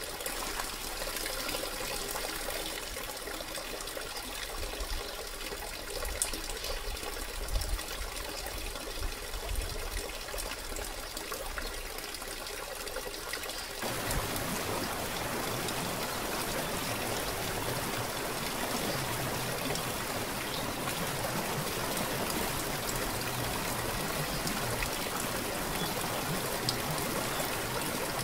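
Waterfall: water splashing steadily down a stepped rock cascade into a pool. About halfway through the sound changes to a fuller, slightly louder, even rush of falling water.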